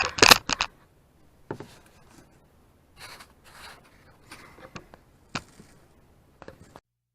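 Handling noises: a quick run of sharp clicks and knocks, then scattered single clicks and short rubbing scrapes, stopping shortly before the end.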